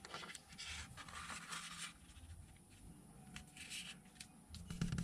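Faint rustling and sliding of a sheet of A4 paper being folded and creased by hand on a tabletop, in a few short soft scrapes.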